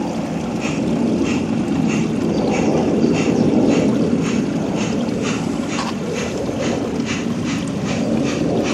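16mm-scale garden railway locomotive running with its train, a regular ticking beat of about three to four a second that quickens slightly, over a steady low rumble.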